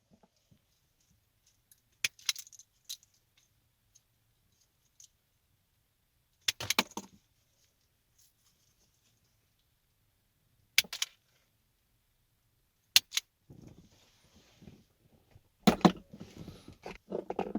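Small metal tools and parts being handled: scattered sharp clinks and clicks with long quiet gaps, then a longer patch of clatter and rustling in the last few seconds.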